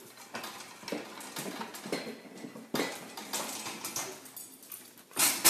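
White metal pet gate rattling and clinking in irregular knocks as an animal pushes against its bars, with a louder clatter about five seconds in.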